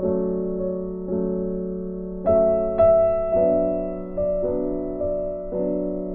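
Background piano music: slow, gentle chords and notes, each struck and left to fade, about one every half second to a second.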